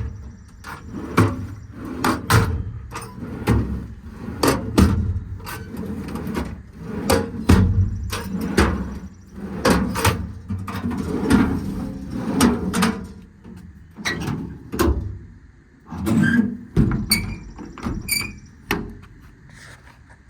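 Metal compartment doors on a Knapheide truck service body being shut and latched: a long, irregular series of clunks and latch clicks, some ringing briefly, that thin out near the end.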